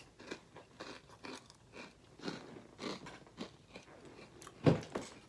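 A mouthful of Apple Jacks cereal being chewed: irregular crunches, with a short, louder vocal sound near the end.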